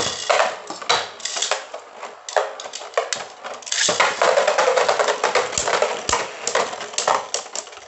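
Two Beyblade spinning tops spinning in a plastic stadium bowl, rattling, scraping and knocking against each other and the bowl walls in a continuous fast clatter of sharp hits.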